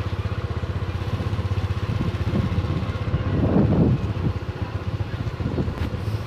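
A small engine running with a fast, even pulse, swelling louder for a moment about three and a half seconds in.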